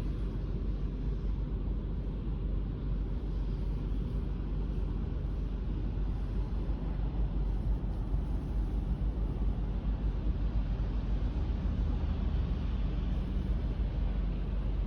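Steady low outdoor rumble, strongest in the deep bass, with no distinct events.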